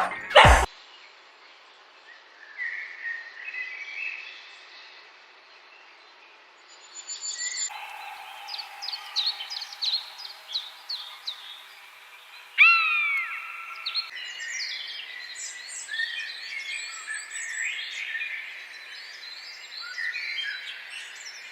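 Birds chirping and calling in a series of spliced recordings: many short, high chirps and whistled notes, with a louder call that sweeps downward about twelve seconds in. A brief loud sound right at the start ends the dog barking that comes before it.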